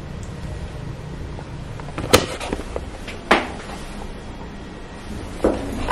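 Two sharp knocks, about two seconds and three seconds in, over a steady low hum of room noise, with a softer knock near the end.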